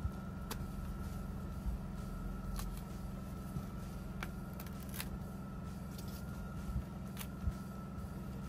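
Scattered light clicks and scrapes of a decayed spawning log being picked apart to dig out stag-beetle larvae, over a steady low hum.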